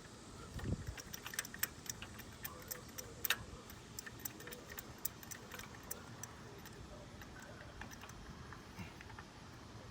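Faint, scattered metallic clicks and ticks of hand tools at work on the car's engine, with a soft thump just under a second in.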